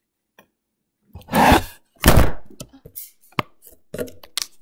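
Handling noise: two loud thuds about one and two seconds in, then a few lighter knocks and clicks, as the recording device is picked up and moved.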